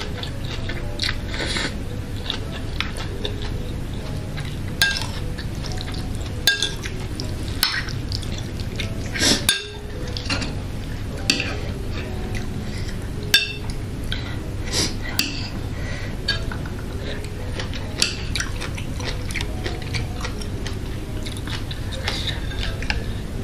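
Close-miked mukbang eating: chewing and slurping of spicy boiled instant noodles, with sharp clinks of a metal fork and chopsticks against the bowl every few seconds.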